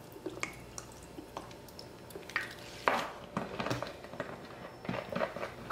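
Faint drips and small splashes of lemon juice from a plastic squeeze bottle falling onto raw oxtails in a glass bowl, among a scatter of light clicks and knocks, the loudest about three seconds in.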